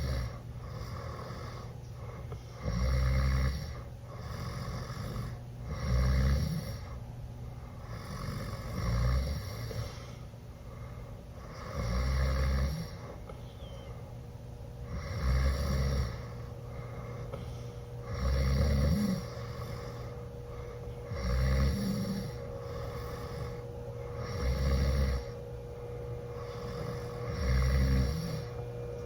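Teenage boy snoring loudly in a deep, drunken sleep: a loud rattling inhale about every three seconds, with a softer breath out between.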